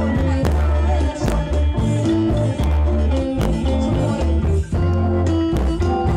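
Live northeastern Thai folk ensemble music: khaen mouth organs holding sustained chords over a steady low drone, with drums struck at irregular intervals.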